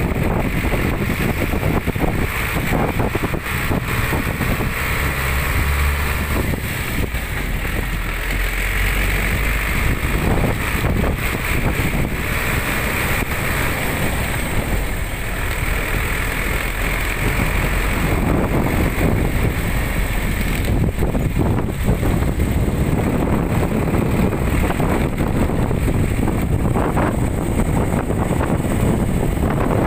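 A truck running down the road, its engine and road noise heard from its open cargo bed.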